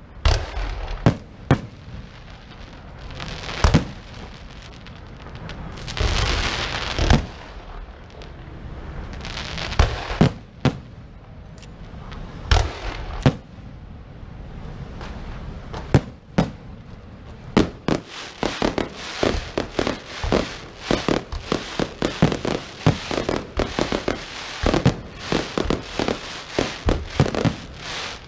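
Fireworks going off: scattered single sharp bangs, with a couple of longer hissing bursts. About two-thirds of the way through they turn into a rapid string of bangs, several a second.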